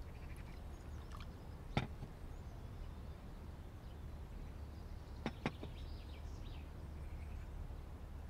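Quiet room tone with a few light clicks of a vessel being handled on a table: one about two seconds in, and two close together a little after five seconds.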